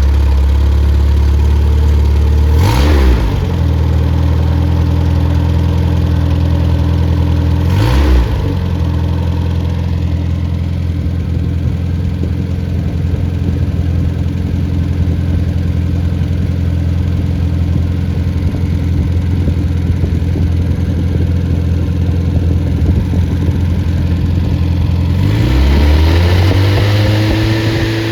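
Freshly rebuilt MG Midget 1500 four-cylinder engine with a 270-duration cam running just after a cold start, blipped twice in the first ten seconds, then raised to a higher steady speed about twenty-six seconds in.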